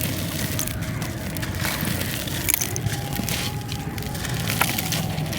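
Dried glitter sand-cement being crumbled: a continuous gritty crunching broken by sharp cracks of pieces snapping, the loudest a little past four seconds in.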